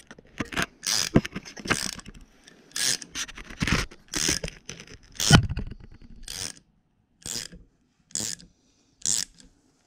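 Hand tap wrench turning a spiral flute tap as it cuts a 3 mm thread in a metal block, making short scraping strokes, irregular at first and then about one a second. There is one louder knock about five seconds in.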